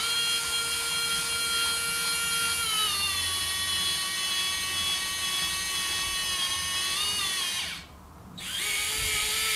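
CADA micro-motor whining steadily as it drives the LEGO truck's fake engine through its gears. The whine steps up in pitch at the start, drops to a lower speed about three seconds in, and stops about eight seconds in before starting again half a second later.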